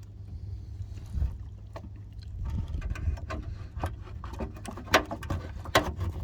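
Knocks and clicks of the van's windscreen washer reservoir being handled and fitted back into place, over a low steady rumble; two sharper clicks come near the end.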